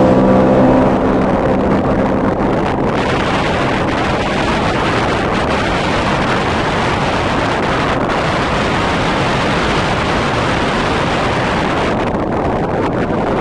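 Sea-Doo FishPro 170 personal watercraft running flat out at top speed: its engine note fades about a second in under steady wind rushing over the microphone and water spray.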